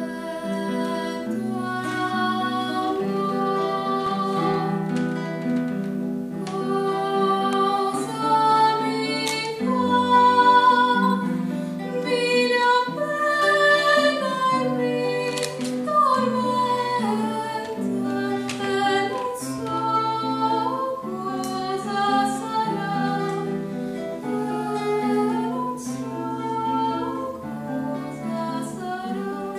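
A girl singing an Italian arietta, her voice carrying the melody in held and gliding notes, accompanied by a plucked acoustic guitar.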